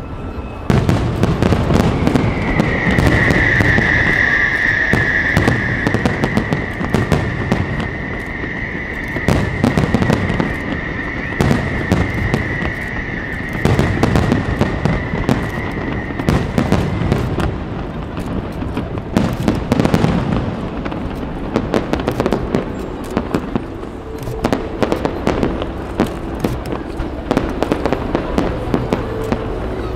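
Aerial firework shells bursting in quick, irregular succession, a dense run of bangs. A steady high tone sounds over the first half, its pitch dipping slightly as it starts.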